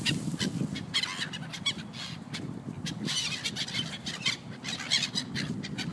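A flock of gulls calling, many short calls overlapping one another throughout.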